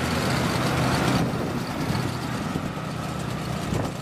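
Truck engine running steadily while it tows a loaded cart, under a hiss of road and wind noise that eases about a second in.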